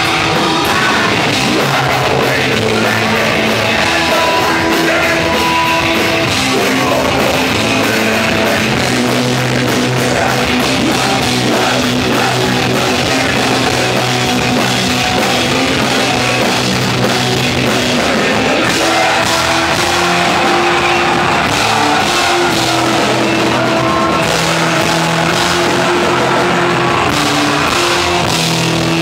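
Live rock band playing loud and steady: drum kit, electric guitars and singing, with held guitar and bass notes under a busy beat.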